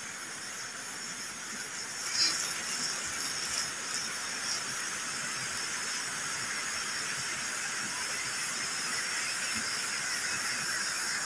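Steady hiss of shallow water running over a rock slab, with a couple of brief louder sounds about two seconds in and again a little later.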